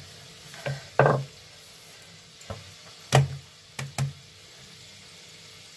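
Rolling pin knocking against a rolling board as dough is rolled out: a few separate sharp knocks, the clearest about a second in and three close together around three to four seconds in.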